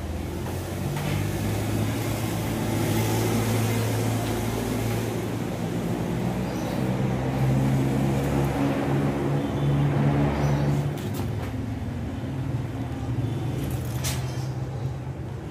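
Honda PCX 160 scooter's single-cylinder engine idling steadily, the sound swelling and easing a couple of times.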